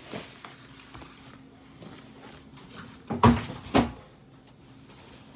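Styrofoam box lid being pried off: quiet handling, then two short loud squeaky scrapes about half a second apart.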